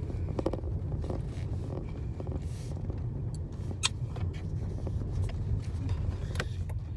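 Car cabin noise while driving: a steady low rumble of engine and tyres on the road, with a couple of light clicks about four and six and a half seconds in.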